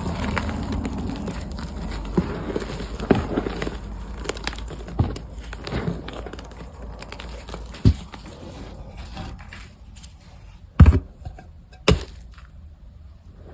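Reformed gym chalk crushed by hand in a wet chalk-and-water mix: dense crunching and crackling at first, thinning out as it goes on. Three sharp knocks stand out later, the loudest about eleven seconds in.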